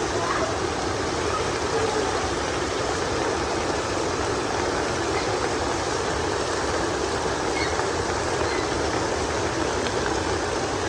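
Heavy rain falling, a steady unbroken hiss of water.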